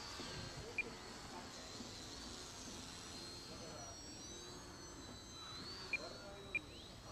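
Electric motors and propellers of ultra-micro Crack Pitts mini RC planes whining high, the pitch wavering up and down as the throttle is worked to hold a hover. Four short high beeps, two near the start and two near the end.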